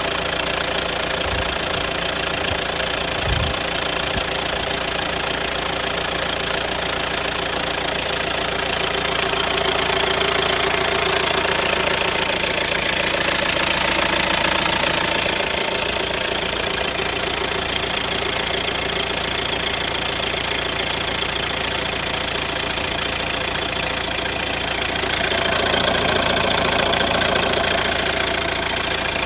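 Renault Grand Scenic 1.6 dCi 130 diesel engine running steadily with a knocking, rattling noise that the owner puts down to a noisy timing chain. It gets slightly louder twice, and there is a brief low thump about three seconds in.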